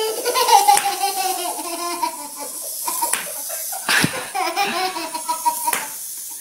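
High-pitched laughter: a long peal falling in pitch, then a second stretch about four seconds in.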